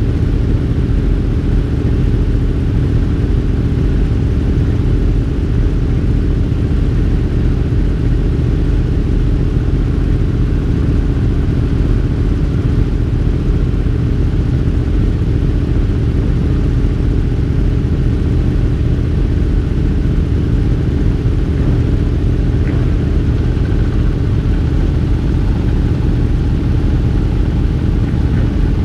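Racing motorcycle engines idling steadily, low and even, with no revving.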